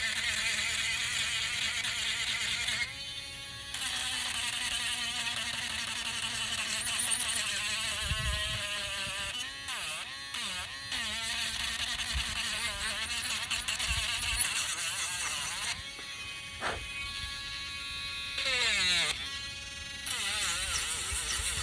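Small electric sander running with a buzzing whine while the rough outside edges of a workpiece are sanded; its pitch wavers and dips several times.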